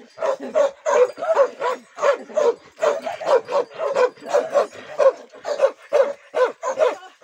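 A large long-haired dog barking over and over, about three barks a second, in a steady run.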